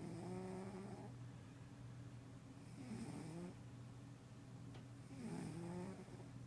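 A sleeping house cat snoring: three faint snores, about one every two and a half seconds.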